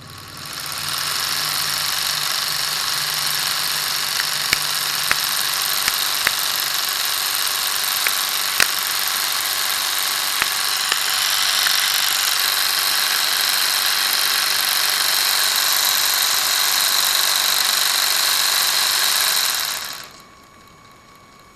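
Lego RC car's electric motor, gears and chain drive running at speed: a steady high whir with a few sharp clicks in its first half, then cutting off suddenly near the end.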